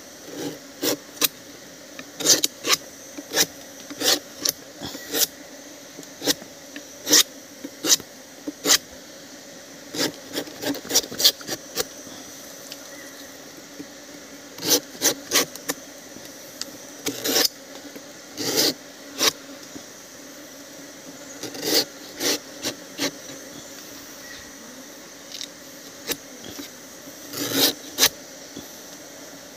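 A knife slicing thin shavings off the cut end of a palm flower stalk (manggar), in dozens of short sharp strokes in irregular runs with pauses between. The slicing renews the cut so the sap drips more freely.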